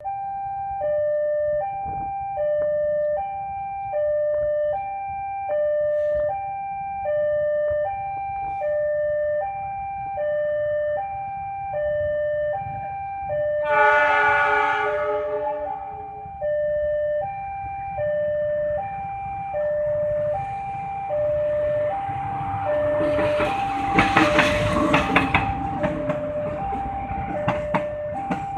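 Railway level-crossing alarm sounding a steady alternating high-low two-tone chime. About halfway through, a diesel locomotive's horn blows one long blast of about two seconds as the passenger train approaches. Near the end the train passes close, loud over the alarm, with sharp clacks of the wheels over rail joints.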